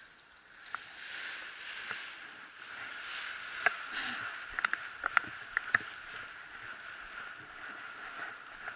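Steady wind noise on an outdoor camera microphone, with a quick cluster of sharp clicks about four to six seconds in.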